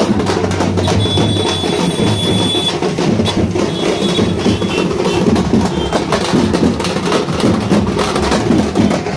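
A group of dappu frame drums beaten with sticks in a fast, unbroken rhythm.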